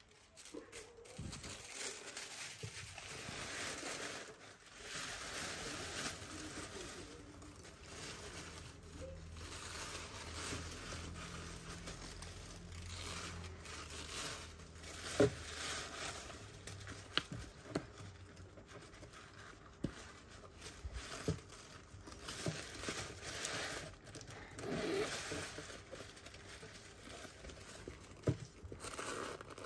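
White tissue paper rustling and crinkling as hands pull it aside and lift a denim bag out of its box, with a few small sharp clicks, the clearest about halfway through.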